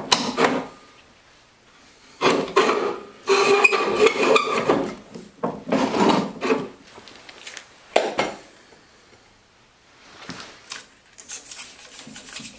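Hands shifting sealed lead-acid batteries in the hand truck's metal battery compartment: several bursts of scraping and rubbing with short pauses, a single knock about eight seconds in, and lighter rubbing near the end.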